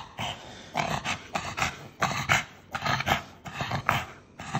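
Pug panting hard with its mouth open, in quick noisy breaths about two to three a second, as it recovers from a seizure.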